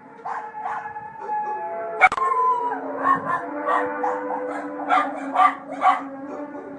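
Several dogs barking and howling, the barks coming thicker in the second half, over a steady low drone, the strange 'trumpet' sound in the sky. A sharp click about two seconds in.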